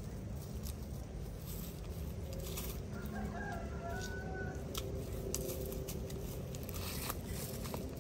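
A rooster crows faintly, a single call about three seconds in. Around it come short scrapes and rustles of a machete and hands clearing soil and dry leaves from the base of a cassava plant.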